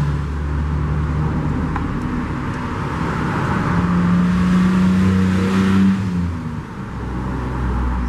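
A steady engine-like motor hum that rises slightly in pitch a little before halfway and drops back about six seconds in.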